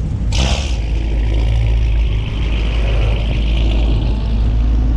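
Cars moving in a slow convoy: a steady low engine and road rumble, with a brief rush of hiss near the start and a higher hiss that fades out partway through.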